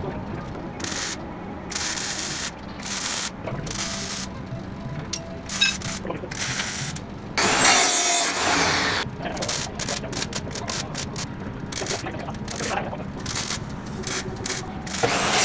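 Metal-shop work on a steel frame: a run of sharp clicks and clanks from metal tubing and tools. About halfway through, an abrasive chop saw cuts steel for about a second and a half, the loudest sound.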